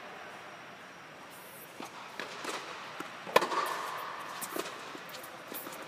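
A tennis racket strikes the ball hard about three and a half seconds in. It is the loudest sound, and it echoes briefly in the indoor court's air dome. A few fainter knocks come before it, and light clicks follow near the end.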